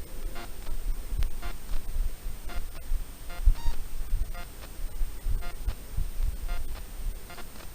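An animal's short call, repeated about once a second and sometimes doubled, over low, irregular rumbling thumps.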